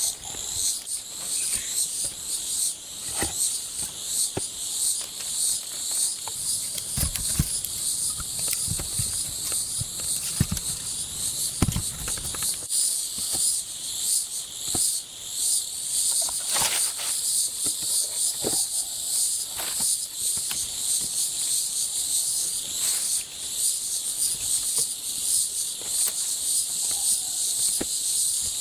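Insects chirping in a steady, pulsing high-pitched chorus, with a few low thuds and sharp clicks scattered through it.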